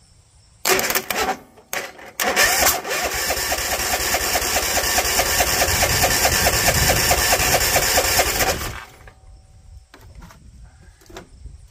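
Bolens ST110 garden tractor's Tecumseh engine being cranked by its electric starter with choke on and starting fluid in the intake: two short stabs, then about six seconds of steady, evenly pulsing cranking that stops without the engine catching.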